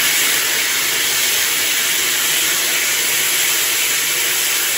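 Wet sanding of a fired pot's foot against a diamond sanding disc on a spinning pottery wheel: a loud, steady grinding hiss.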